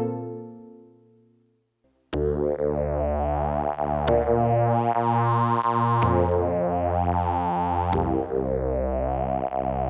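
Roland D-20 synthesizer (Linear Arithmetic synthesis) playing: a held sound dies away, and after a short gap a new patch starts with rhythmically pulsing chords over a bass line, moving to a new chord about every two seconds.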